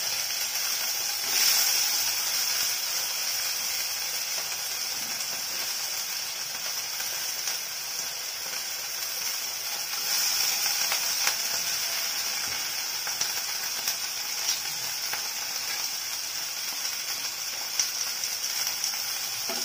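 Chopped potato, capsicum and onion sizzling in hot oil in a stainless steel kadai, with a few faint clicks. The sizzle grows louder about ten seconds in, as more potato goes into the pan.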